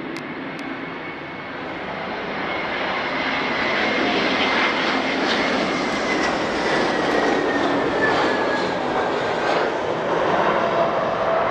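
Airbus A320-214's CFM56 turbofan engines at approach power as the airliner flies in on short final and flares over the runway. The jet noise grows louder over the first few seconds and then holds. A high engine whine slowly drops in pitch through the middle, and a lower whine comes in near the end.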